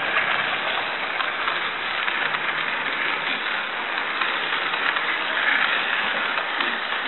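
HO-scale model passenger cars rolling past on the track: a steady rattle of small metal wheels over the rails and joints, with fine rapid clicking throughout.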